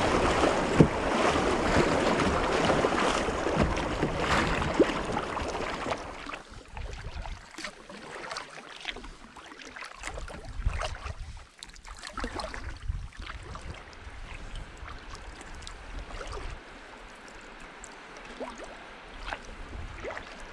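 Shallow river rapid rushing and splashing around a kayak's bow, dropping off about six seconds in to calm water with light scattered splashes from kayak paddle strokes.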